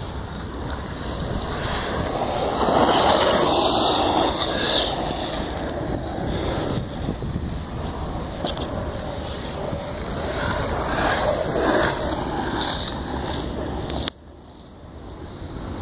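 Skateboard wheels rolling on asphalt as skaters ride past, mixed with wind noise on the microphone. The rumble swells about three seconds in and again around ten to twelve seconds, and the level drops suddenly near the end.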